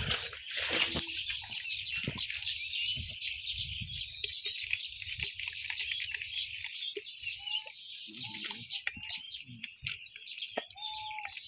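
Birds chirping continuously in the background, with a short lower call twice in the second half. Over the first half there are low splashes and squelches as hands work through shallow muddy water.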